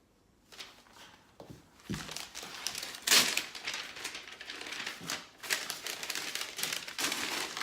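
Crinkling and rustling of packaging being handled, with many small crackles, starting about half a second in and loudest around three seconds in.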